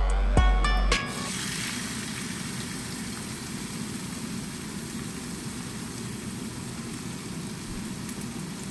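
A beat-driven music track cuts off about a second in, then a steak sizzles steadily in butter in a hot frying pan.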